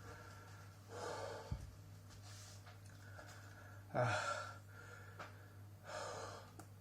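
A man gasping and breathing hard against the burn of ghost and other hot chili peppers. The gasps are sharp and breathy, coming about every two seconds, with the loudest about four seconds in.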